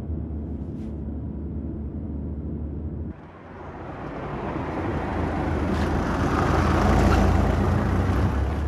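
A steady low engine drone, then a sudden cut to a vehicle approaching and passing. Its noise swells to a peak about seven seconds in and begins to fade.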